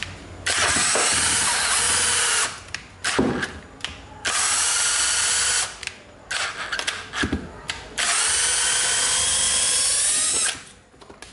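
Cordless drill boring into a wooden block with a 10 mm metal-cutting twist bit. It runs in three long bursts of about two seconds, with short starts in between, and its motor whine climbs as each run begins. The owner says the ill-fitting battery makes the drill cut out now and then.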